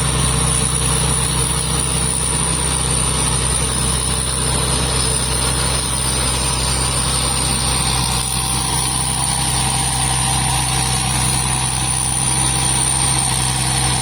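Rice combine harvester's diesel engine running steadily, a low drone with a constant high-pitched whine above it.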